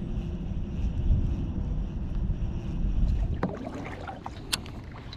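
Wind buffeting the microphone with a low rumble that eases about three and a half seconds in, followed by a few light ticks and one sharp click from the rod and baitcasting reel as a cast is made.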